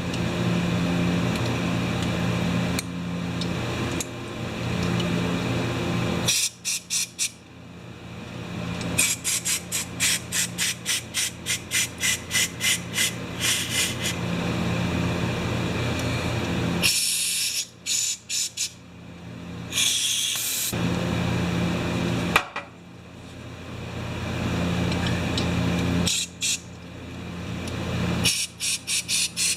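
A tool run while the small two-stroke carburettor's jets are cleaned, making a steady hiss with a low hum. It goes in long runs broken by stretches of rapid on-off pulses, about two a second.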